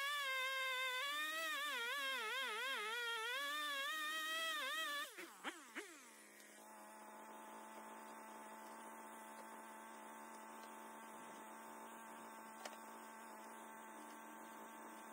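Chainsaw engine running at high revs, its pitch rising and falling with the throttle as it cuts into a wood round. About five seconds in the revs fall away sharply, and a much quieter steady hum continues.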